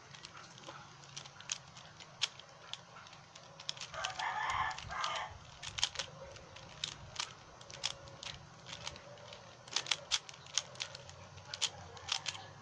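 Plastic 3x3 Rubik's cube being turned by hand: quick, irregular clicks and clacks of the layers snapping round. About four seconds in, a rooster crows once, for a second or so.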